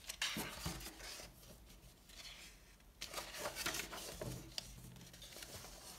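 Paper rustling as a paperback picture book's cover and pages are turned by hand, in two spells: one in the first second and another from about three seconds in.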